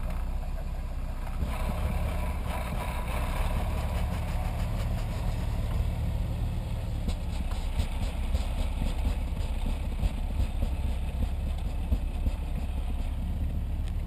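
Jeep Wrangler's engine running at low speed under load as it crawls up out of a snow hole, with a steady low rumble and, from about halfway in, uneven short knocks and crunches as the tyres work through the snow.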